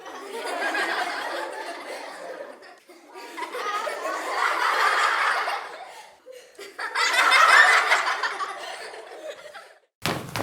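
A crowd laughing, in three separate swells that each build and fade away, the third the loudest. A quick run of taps starts right at the end.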